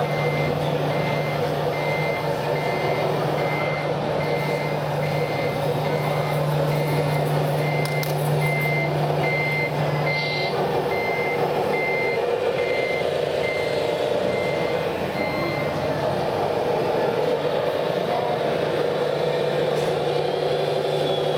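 Simulated reversing beeper from the electronic sound module of a radio-controlled CAT 966G model wheel loader, beeping evenly about one and a half times a second and stopping about three quarters of the way through, over the module's steady low diesel-engine hum.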